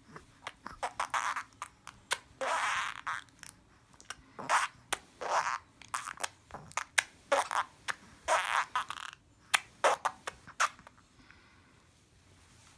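Someone making silly noises: a rapid string of short, hissy, sputtering bursts with no voiced pitch, one held for about a second early on, stopping about two seconds before the end.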